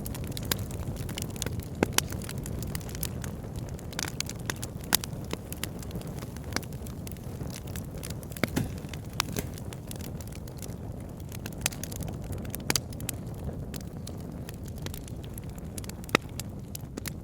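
Wood fire burning in a fireplace: a steady low rumble of flames with irregular sharp crackles and pops, several of them loud.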